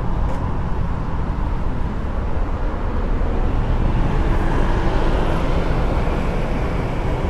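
Street traffic: a steady rumble of cars and other vehicles passing on the road.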